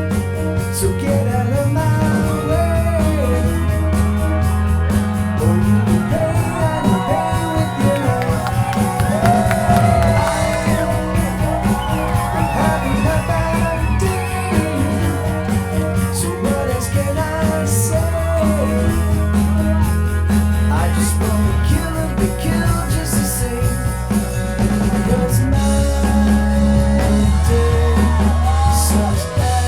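Rock and roll song with singing and shouted vocals over a steady bass line.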